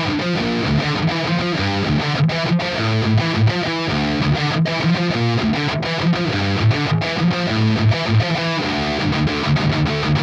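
Electric guitar through the ML Sound Lab Amped Roots amp sim in its modern high gain setting, playing a heavily distorted metal riff with many brief, sharp stops.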